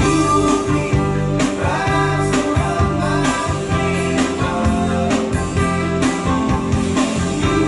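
A song with a singing voice, played back loudly over hi-fi loudspeakers driven by a vintage Sansui BA-2000 power amplifier fed from a Nakamichi 1000P DAC, picked up by a camera microphone that the uploader says distorts at this loudness.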